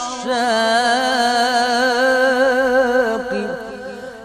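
A solo male voice singing an Egyptian Islamic ibtihal: one long held, ornamented melisma with wavering turns on a wordless vowel, fading near the end.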